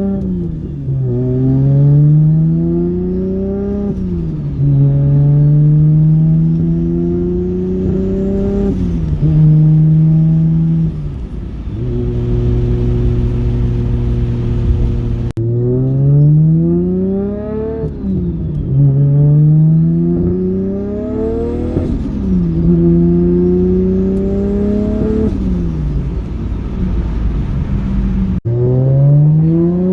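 1992 Nissan Skyline R32 GTR's RB26 straight-six, converted to a single Borg Warner S360SX turbo on about 9 psi, accelerating hard through the gears. Its note climbs and drops back at each shift while a high turbo whistle rises and falls with it. In the middle it holds a steady cruise, and twice the sound cuts off abruptly.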